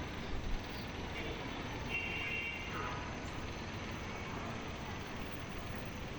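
City street ambience: a steady hum of traffic, with a short faint high tone about two seconds in.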